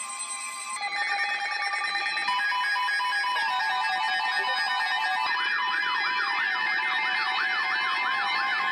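Layered electronic alert tones: several steady tones and repeating beeps, which build up in layers. About five seconds in, a siren-like tone joins, sweeping up and down two to three times a second.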